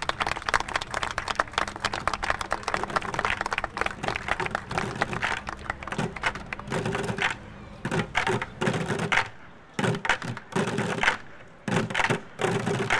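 Crowd applauding with a dense patter of hand claps. About six seconds in this gives way to children drumming with sticks on upturned plastic five-gallon buckets, in loud clusters of hollow hits with short breaks between.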